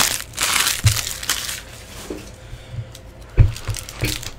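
Foil trading-card pack wrapper crinkling and tearing as it is handled and ripped open by hand, with a sharp click about three and a half seconds in.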